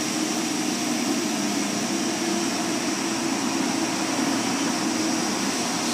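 Car wash's air-dryer blowers running steadily: an even rushing noise with a low hum beneath it.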